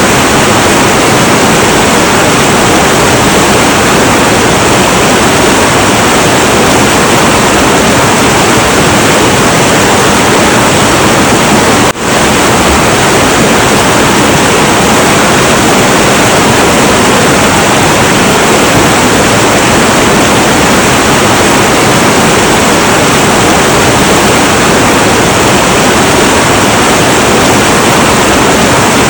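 Heavy, turbulent river water rushing steadily and loudly, with a momentary drop in level about twelve seconds in.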